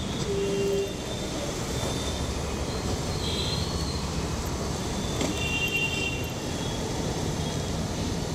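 Steady rumble of street noise, with brief high-pitched squeals about three and a half seconds in and again around six seconds.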